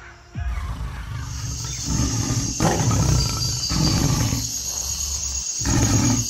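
Deep animal roars, several in a row, each starting abruptly.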